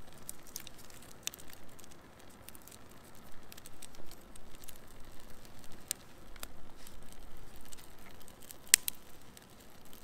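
A small birch-bark and kindling fire catching, with irregular sharp crackles and snaps as twigs are fed in. The loudest snap comes near the end.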